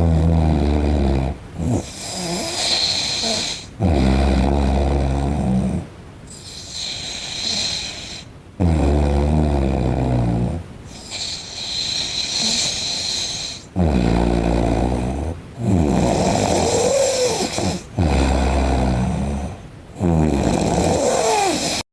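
A man snoring loudly in deep sleep: a rough, rattling snore on each breath, every two to three seconds, with breathier passages between them. It cuts off abruptly near the end.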